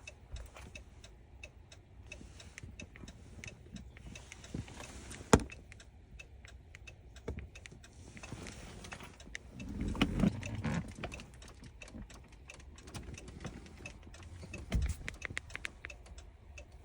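Car hazard-light flasher ticking steadily inside the cabin. There is a sharp single click about five seconds in and a louder burst of sound around ten seconds.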